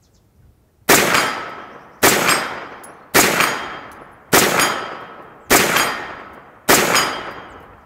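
Faxon Bantam 9mm pistol-caliber carbine firing six single shots, about one every 1.2 seconds. Each sharp report is followed by a long echo dying away.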